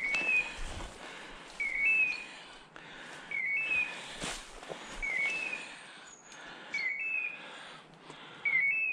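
Hunting dog's beeper collar sounding its point-mode call: the same short two-step chirp repeated about every 1.7 seconds, the sign that the pointer is standing on point. Footsteps rustle through dry leaf litter, with a sharp snap about four seconds in.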